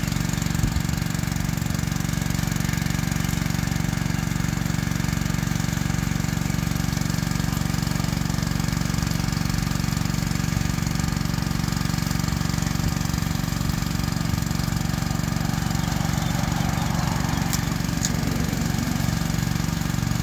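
A small engine running steadily, a constant unchanging drone. Two short, sharp clicks near the end.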